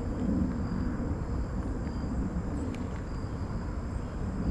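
Steady low outdoor rumble with no distinct event, with a couple of faint clicks about two and a half seconds in.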